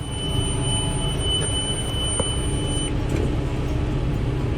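Tractor engine running steadily, with a steady high-pitched electronic alert tone over it that sounds for about three seconds and then cuts off suddenly.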